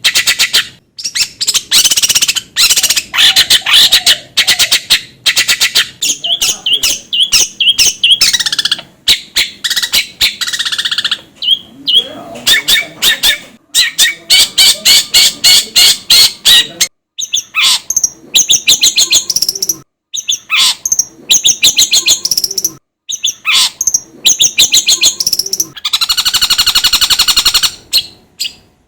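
Long-tailed shrike (cendet) singing almost without pause: fast runs of short chirps and chattering notes, broken by brief gaps. Near the end there is a longer harsh, buzzy trill.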